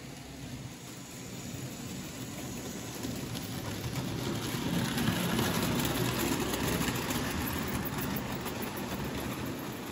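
Märklin H0 model steam locomotive and passenger coaches running on the track, a steady whirring, rolling noise that grows louder as the train passes close, about five seconds in, and then fades as it moves away.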